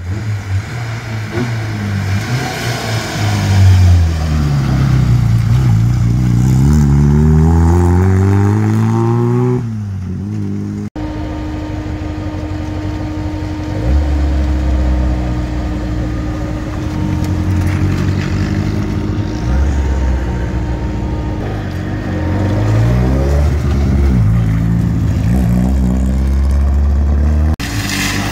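Rally cars' engines revving hard as they come up the stage, the pitch climbing again and again through the gears. After an abrupt cut about eleven seconds in, an engine runs at a steadier note before revving up again near the end.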